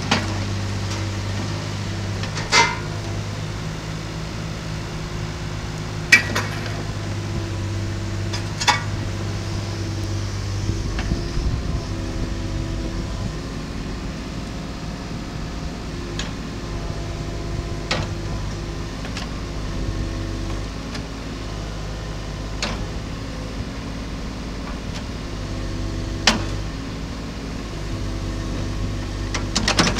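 Cat 303.5 mini excavator's diesel engine running steadily while the boom and house are worked hydraulically. The engine note shifts about eleven seconds in. Seven short sharp knocks are spread through it, typical of the bucket and boom linkage clunking.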